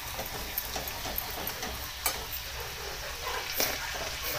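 Spices frying in hot oil in a metal kadhai: red chilli powder and turmeric sizzling with cumin and garlic as a spoon stirs them, with short clicks and scrapes of the spoon on the pan.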